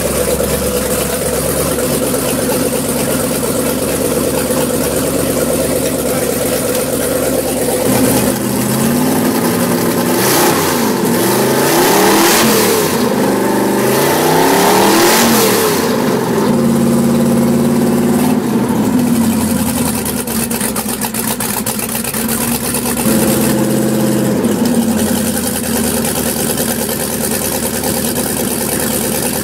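Marine Chevrolet big-block 454 V8, bored .060 over to 468 cubic inches, idling steadily, then revved up and down several times, held briefly at higher revs, and settled back to idle with one more short rev near the end.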